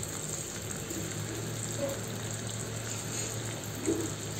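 Fish pieces and masala frying in oil in a kadai, a steady sizzle over a low hum.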